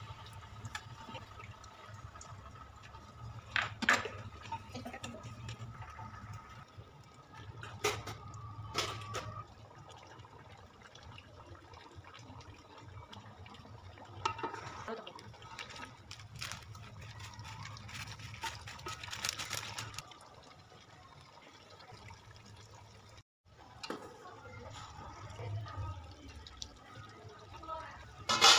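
Water in a large steel cooking pot, with liquid pouring and splashing into it and a few short knocks and clinks of utensils against the pot, over a low steady hum.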